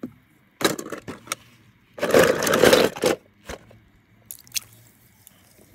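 Handling noise: a few short scrapes and clicks, with one louder scraping rustle about a second long near the middle.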